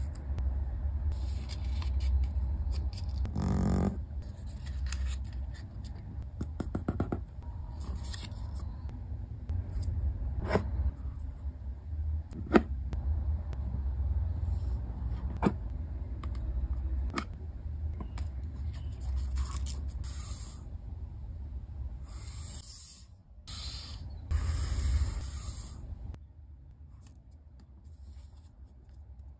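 A small sheet of origami paper being folded by hand: paper rustling and scraping under the fingers, with several sharp crease snaps in the middle as folds are pressed down. A steady low hum runs underneath.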